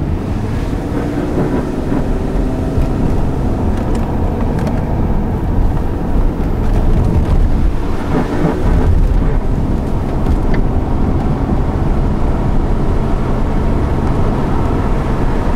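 Car engine heard from inside the cabin, working hard with its pitch rising and falling, over a loud low rumble of road noise.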